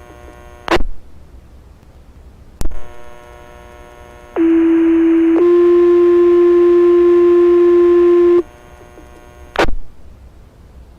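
Fire dispatch two-tone page over the radio: a steady tone for about a second, then a slightly higher steady tone held about three seconds, alerting the fire station's pagers. Sharp radio clicks come before and after the tones.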